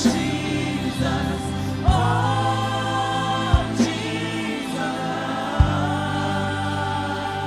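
Slow gospel worship music: a choir holds long sung notes over a steady low bass, with a soft low drum hit about every two seconds.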